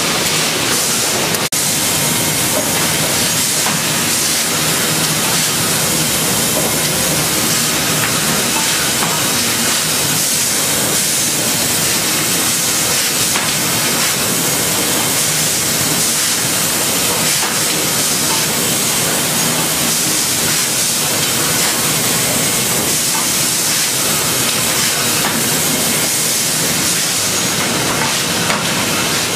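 Chip-N-Saw sawmill machine running, its chipping heads and saws cutting a log into a squared cant: a loud, steady, hissing mechanical din that does not let up.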